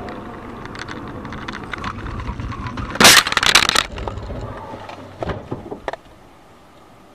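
Car collision heard from inside the dashcam car: steady driving noise, then a loud crash about three seconds in that lasts about a second. A few sharp knocks follow as the dashcam is knocked off its mount.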